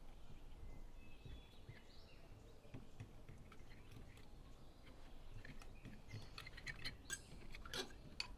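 Faint, scattered light clicks and taps of a spoon mixing custard powder, sugar and milk into a paste in a small bowl, with the taps coming more often near the end.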